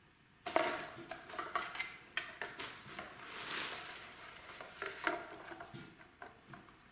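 A cellophane bag crinkling and crackling and a cardboard tube tapping and rolling on a tile floor as a kitten pounces on them and wrestles with them. A rapid run of crackles and taps starts about half a second in and thins out near the end.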